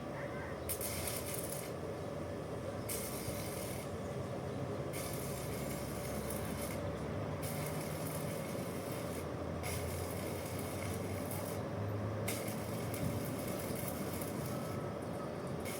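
Hissing that comes and goes in bursts of about one to two seconds, over a steady low hum.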